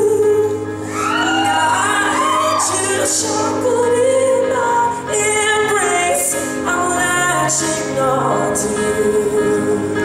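A man singing high, sliding vocal lines into a handheld microphone over a recorded pop backing track, amplified through the hall's sound system.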